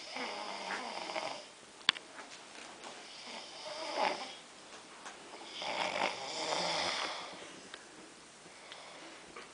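A man snoring in his sleep, three long rasping snores about two to three seconds apart. A single sharp click about two seconds in.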